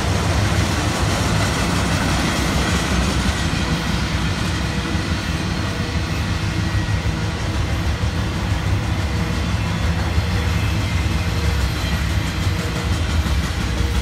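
Intermodal freight cars, double-stack container well cars and trailer flatcars, rolling past: a steady, loud rumble of steel wheels on the rails.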